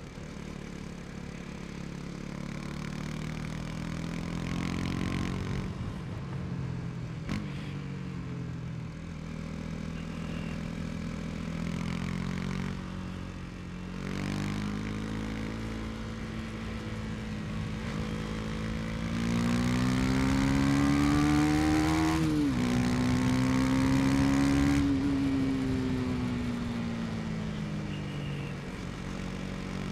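KTM Duke 250's single-cylinder engine under way, revving up and easing off. It climbs in pitch for several seconds, drops sharply at a gear change about two-thirds of the way in, then holds loud and falls away as the throttle closes.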